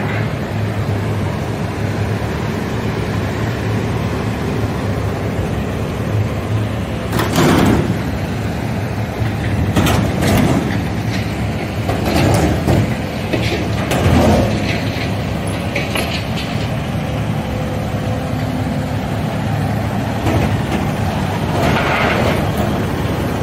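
Tracked excavator's diesel engine and hydraulics running under load. Several loud metallic scrapes and clanks come as its grapple claw grips and lifts a steel utility service body off the truck chassis.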